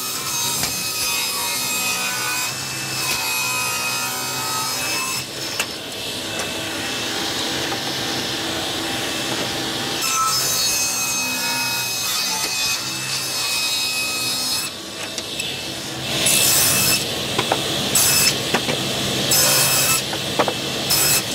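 Sliding table saw running and ripping a wooden beam down to 45 × 45 mm in several passes, the cutting sound rising and easing as each pass is fed through. Near the end come a few short, sharp bursts of cutting.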